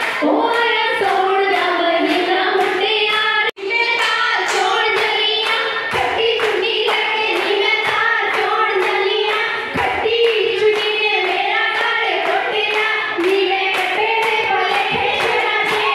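Group of women singing Punjabi folk songs together, with steady rhythmic hand-clapping keeping the beat, as for giddha dancing. The sound cuts out for an instant about three and a half seconds in.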